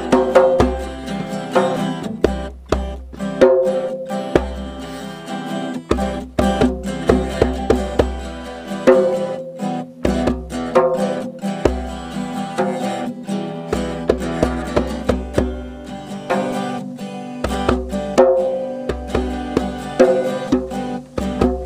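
Twelve-string acoustic guitar strummed and picked, accompanied by a hand-played djembe with deep bass strokes and sharp slaps.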